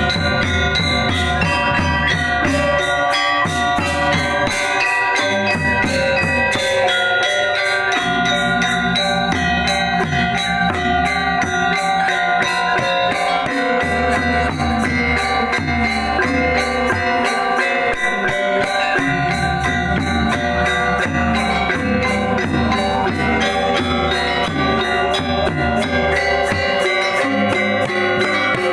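Balinese gamelan gong kebyar ensemble playing. Bronze metallophones ring in dense, fast strokes over drums, and the low drum part thins out briefly a couple of times.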